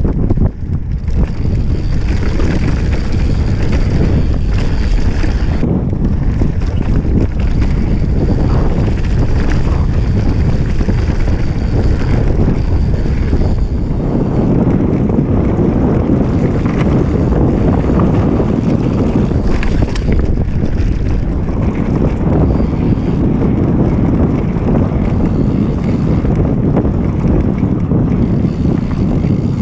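Wind buffeting the microphone of a handlebar-mounted camera on a mountain bike descending a dirt trail: a loud, steady rush, with the rumble of the tyres over loose gravel underneath.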